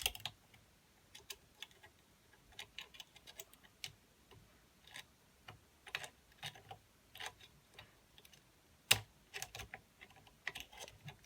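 Pick wires working inside a five-lever mortise lock: small, irregular metallic clicks and ticks as the levers are lifted, with one sharper, louder click about nine seconds in.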